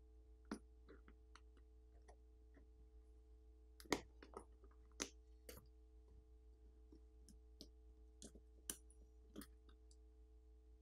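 Faint, scattered plastic clicks and ticks as the smartphone's plastic antenna cover is pried and lifted off its frame, its catches letting go. The sharpest clicks come about four and five seconds in, over a faint steady hum.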